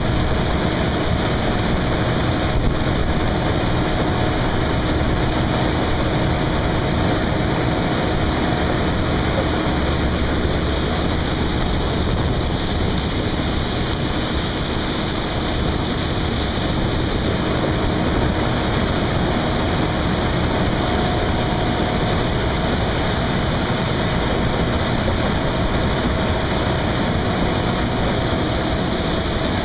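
Heavy harvest machinery running steadily under load: a constant dense drone of engine and machine noise with a faint steady whine.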